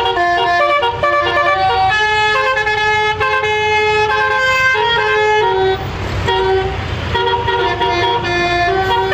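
Six-note telolet bus horn, a multi-trumpet air horn, playing a melody: a quick run of held horn notes stepping up and down in pitch, broken briefly by a rushing noise a little past the middle.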